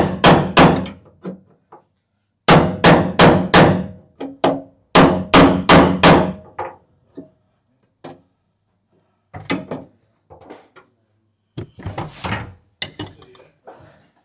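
Hammer blows on the steel body panel and pry bar while a dented rear quarter is worked out under pull. The blows come in quick runs of four or five at about three a second, then lighter, scattered taps in the last few seconds.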